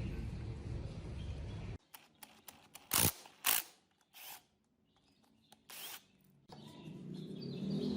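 Sharp mechanical clicks: four louder ones among fainter ticks, after a steady background sound cuts off suddenly.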